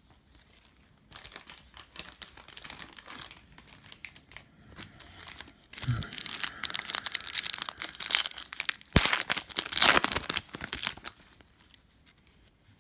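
Plastic foil wrapper of a trading card pack being torn open and crinkled, louder and more vigorous in the second half, with one sharp click about nine seconds in.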